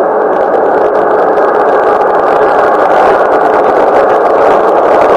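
Glasgow Subway train approaching through the tunnel: a loud, steady rumbling roar of wheels on rail that grows gradually louder, with faint rattling clicks becoming more frequent toward the end.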